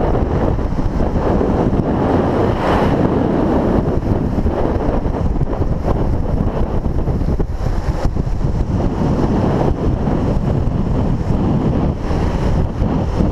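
Heavy wind rush on a rider-mounted camera's microphone at downhill longboarding speed, over the steady rolling noise of longboard wheels on asphalt.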